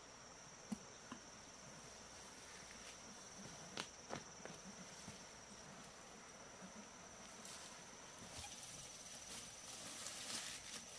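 A steady, high-pitched insect trill, faint outdoor ambience, with a few sharp clicks about a second and four seconds in and soft rustling that builds near the end.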